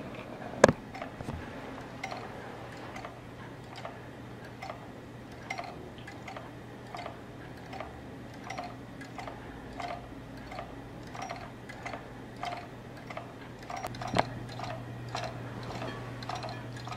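A homemade magnet-wheel motor running. Its small magnet flips back and forth on its shaft against rubber stops each time one of the wheel's four large magnets passes, giving a regular light ticking of about three ticks every two seconds. There is a sharper click about a second in and another late on.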